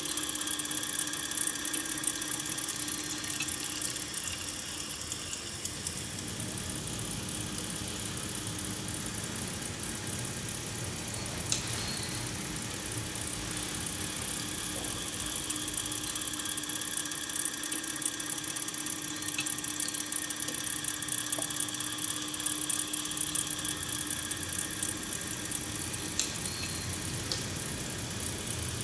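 Motor-driven mechanism of a kinetic metal sculpture running: a steady whir with a thin high whine, and a few light clicks.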